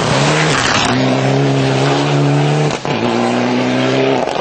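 Rally car blasting past at speed with a loud rush of engine and tyre noise, then its engine holding a steady high-revving note as it pulls away. A brief break near three seconds in is a gear change.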